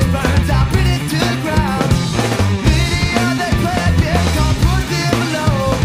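Studio recording of a rock band playing, with electric guitar, bass and drum kit.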